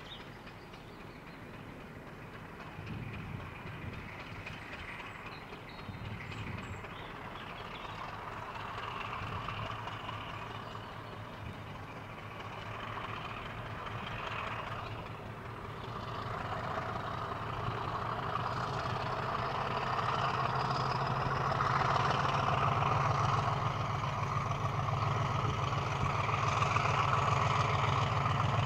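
English Electric Class 50 diesel locomotive, with its 16-cylinder engine, hauling coaches slowly towards the listener. The steady engine note grows steadily louder as it draws nearer.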